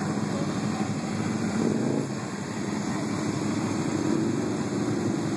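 Can-Am Spyder three-wheeled motorcycles with Rotax V-twin engines passing one after another at slow parade speed: a steady drone of several engines mixed with tyre noise. One engine note stands out a little more near the end.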